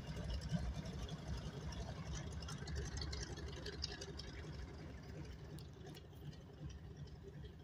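Boeing Stearman biplane's radial engine running at low taxi power, a low rumble that slowly fades as the plane taxis away.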